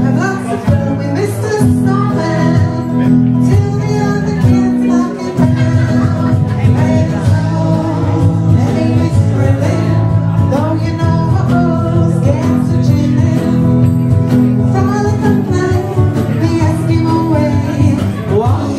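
Live band playing: a woman singing into a microphone over electric guitars.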